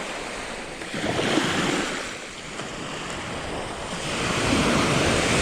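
Ocean surf washing onto a beach, swelling about a second in and again near the end, with some wind on the microphone.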